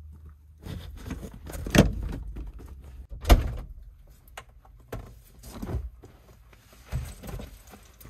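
Scattered knocks and thumps of camping gear and a Jeep being handled, the sharpest a single thud about three seconds in, over a low hum that stops at that thud.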